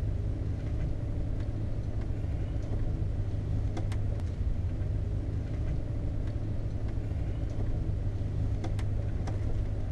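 1991 Tioga Class C motorhome driving slowly along a town street, heard from inside the cab: a steady low engine and road rumble with a few faint clicks.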